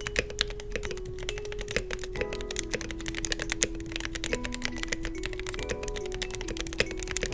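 Steady fast typing on a mechanical keyboard fitted with Everglide Aqua King V3 linear switches and Akko ASA-profile clear keycaps, a dense run of key clicks, over soft background music.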